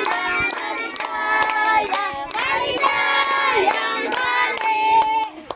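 A group of voices singing a song together, with hands clapping along throughout.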